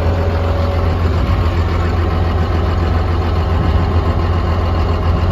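Komatsu D41P-6 bulldozer's diesel engine idling steadily, a low even hum.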